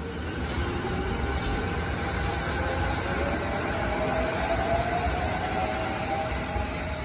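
Sanyo Electric Railway electric train pulling out of the station, its traction motors whining and rising steadily in pitch as it accelerates over a low running rumble.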